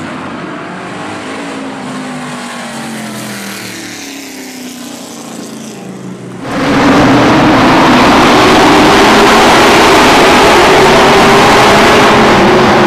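Stock car racing engines on a short oval: first a single car's engine winding down, its pitch falling. About six and a half seconds in, the sound jumps abruptly to loud, steady engine noise from a pack of cars running at speed.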